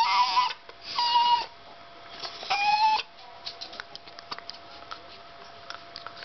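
Yorkshire terrier whining, three high-pitched whines in the first three seconds, then light scattered clicks as it mouths and bites at a screwdriver.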